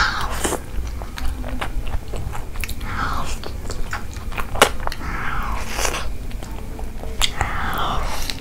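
Close-miked eating: biting into and chewing curried egg, chicken and mutton by hand, with sharp mouth clicks now and then.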